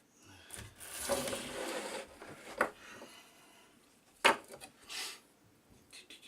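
Pieces of wood being handled: a couple of seconds of wood scraping against wood, then two sharp knocks and a brief further scrape, with light ticks near the end.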